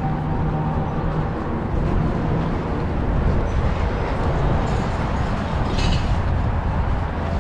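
Steady outdoor city ambience: a low rumble and hiss of distant traffic and open air, with a faint engine-like hum that fades out in the first second or two and a brief high sound about six seconds in.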